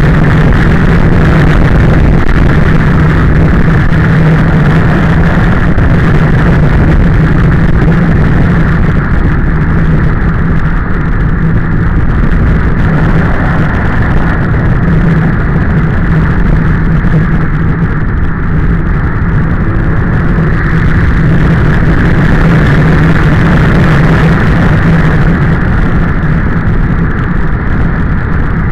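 Motorcycle engine running steadily at an even road speed, heard from a camera mounted on the bike, with wind rushing over the microphone.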